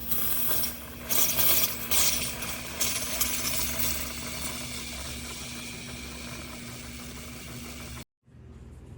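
Single-serve K-Cup coffee maker brewing: a steady pump hum under hissing, with three louder sputtering bursts in the first few seconds, then a steadier hiss that cuts off suddenly near the end.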